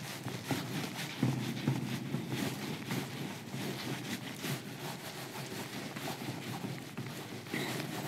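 Felt whiteboard duster rubbing across a whiteboard in quick repeated strokes, wiping off marker writing.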